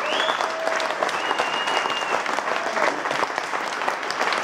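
Concert audience applauding steadily, with a couple of high held whistles over the clapping in the first two seconds.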